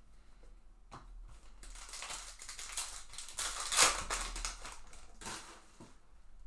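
Trading-card pack being torn open and its foil wrapper crinkled, building to a loudest tear near the middle, with cards handled and clicking against each other.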